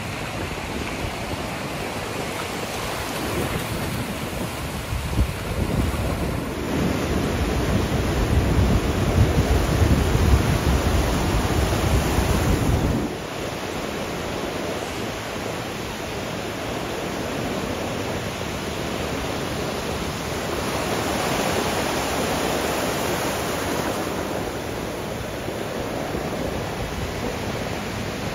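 Ocean surf breaking and washing in the shallows, a steady wash of water. For the first half a heavier low rumble of wind on the microphone lies over it, dropping away about halfway through.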